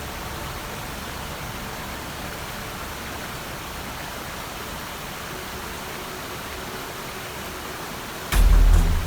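A steady, even hiss, then a sudden loud, deep boom about eight seconds in.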